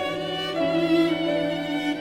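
An iPhone ringtone playing a slow bowed-string melody: violin-like notes with vibrato over a low held note, the melody moving to a new note about every half second.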